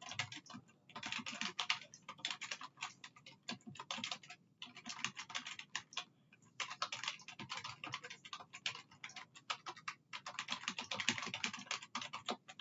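Fast typing on a computer keyboard: quick runs of keystrokes broken by short pauses.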